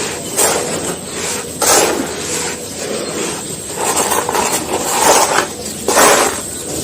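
Dry, grainy crumbly material being crushed and crumbled by hand in a tub: a run of irregular crisp crunches and gritty crackling, with the sharpest crunches about half a second, a second and a half and six seconds in.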